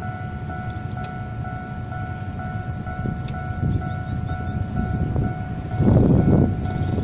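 Railway level crossing warning alarm sounding a steady pulsing electronic tone, the signal that a train is approaching. Under it a low rumble builds and jumps louder about six seconds in.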